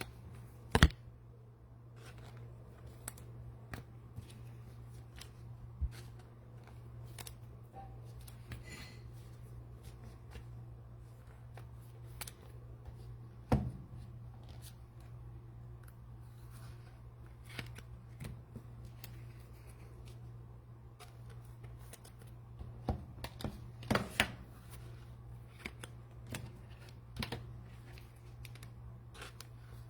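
Trading cards and their cellophane pack wrappers being handled at a table: scattered soft clicks, taps and rustles, a few sharper ones. A steady low hum runs underneath.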